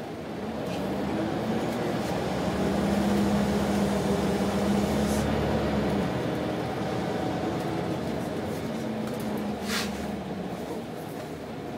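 Scania single-decker bus engine and drivetrain heard from inside the passenger saloon, running under load. It gets louder over the first few seconds, eases off about six seconds in, and then runs on more quietly. A sharp click or rattle comes near the end.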